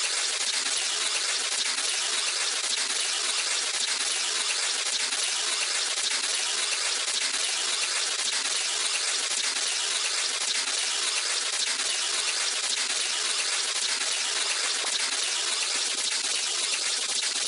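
Synthesized crackling-paper sound effect, built from square waves, playing back as a dense, even hiss of tiny crackles that sits mostly in the treble and holds steady throughout.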